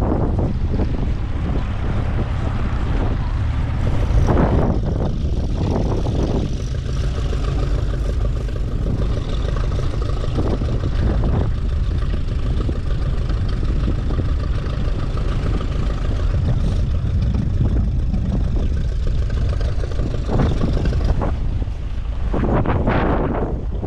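Strong wind buffeting the microphone, with an engine running steadily underneath from about six seconds in until shortly before the end.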